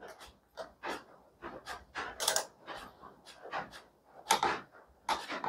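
Ratchet-head torque wrench working a fork's lower triple-clamp pinch bolt: a series of short, irregular ratchet clicks as the bolt is brought up to its 23 ft-lb torque.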